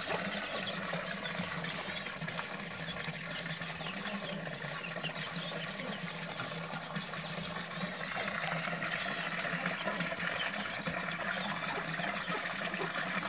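Small garden pond fountain: water splashing and trickling steadily from a spout into the pond, with a low steady hum beneath.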